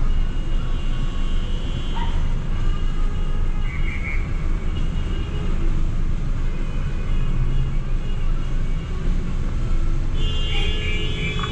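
Traffic jam: a steady low rumble of stopped and idling traffic, with car horns honking. There is a short horn toot about four seconds in and a loud, sustained horn blast starting near the end.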